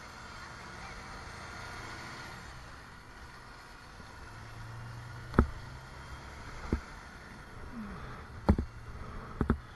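Wind and road noise from riding a bicycle in traffic close behind a double-decker bus, with a low engine hum and four or five sharp knocks in the second half.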